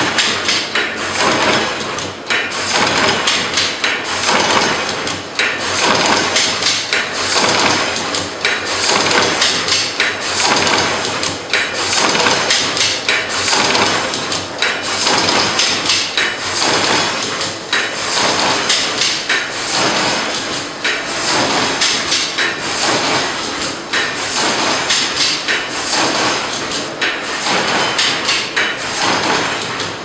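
Automatic wire stripping, twisting and soldering machine running, its mechanism clacking and knocking in a steady, fast repeating cycle.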